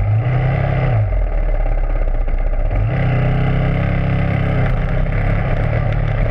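Dirt bike engine being ridden on a trail: a short rise in revs in the first second, then easing off, and back on the throttle from about three seconds in, held with small rises and dips.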